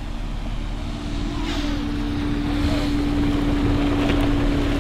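Ford Bronco Sport SUV driving along a dirt track: a steady engine drone over a low rumble. It grows a little louder after about a second as the vehicle comes closer.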